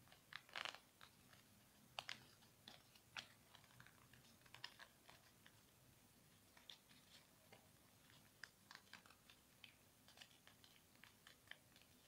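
Faint, irregular crackles and ticks of a small sheet of paper being folded and creased by hand, with a cluster of louder crinkles in the first few seconds.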